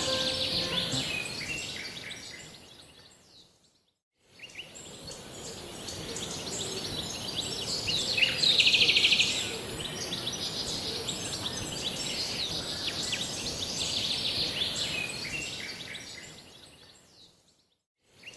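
Forest ambience of many small birds chirping and calling over a steady high hiss, with one louder rapid trill about eight seconds in. The sound fades out about four seconds in, fades back up, and fades out again near the end.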